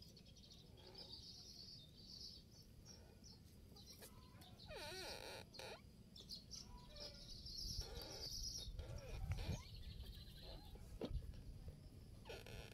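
Quiet outdoor ambience: bird chirps and a few wavering animal calls over a steady low rumble.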